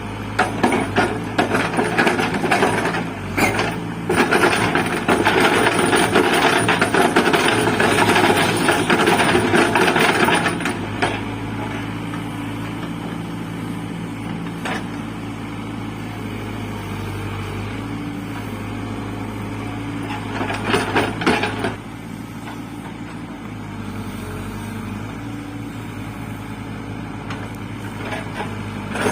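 Cat 424B2 backhoe loader's diesel engine running steadily while digging a trench, with loud scraping and rattling for about the first ten seconds and again in a short burst about two-thirds of the way through.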